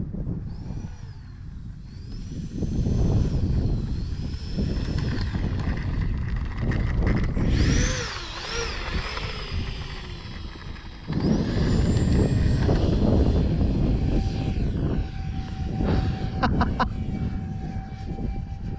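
Twin 50 mm electric ducted fans of a foam RC A-10 jet whining, the pitch rising and falling with throttle. Heavy wind rumble on the microphone runs underneath.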